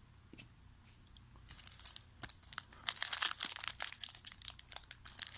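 Trading card pack wrapper being crinkled and torn open by hand: a dense, crackly rustling that starts about a second and a half in and goes on in quick irregular crackles.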